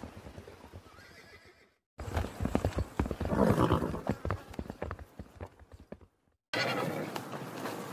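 Primate calls played as separate short recordings, split by brief silences about two seconds and about six seconds in. The middle recording is the loudest, a run of sharp, rapid calls peaking about three and a half seconds in.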